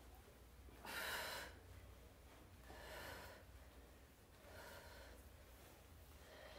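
A woman breathing out hard in short puffs while she holds a forearm plank and bounces her hips from side to side. There are three breaths about a second and a half to two seconds apart; the first, about a second in, is the loudest.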